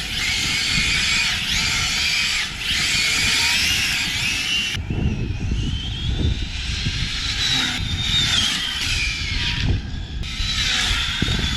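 Brushless electric motors of Arrma Felony 6S RC cars whining at high speed, the pitch rising and falling with the throttle, over a low rumble of tyres on the ground.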